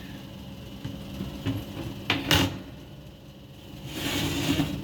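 Turbo broiler being opened to check a roasting chicken: a few clicks and knocks of the lid about two seconds in, then a short hiss near the end.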